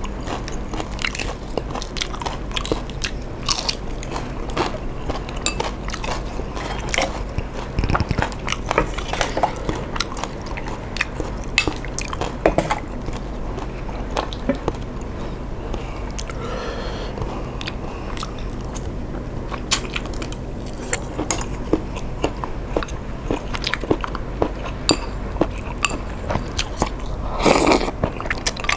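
Close-miked eating sounds: a person chewing and eating a bowl of tom yum seafood instant noodles, with many small irregular wet clicks. There is a louder burst near the end.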